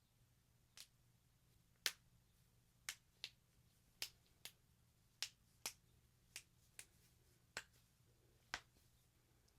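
Finger and knuckle joints popping during a hand adjustment: about a dozen sharp, single cracks at an uneven pace, often two in quick succession.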